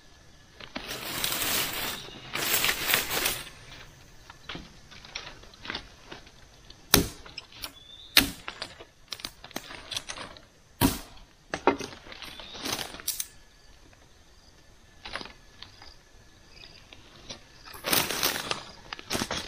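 Gathering firewood in forest undergrowth: bursts of rustling leaves and brush, with a scattering of single sharp cracks of dry wood snapping. There are two rustling bursts early on and another near the end.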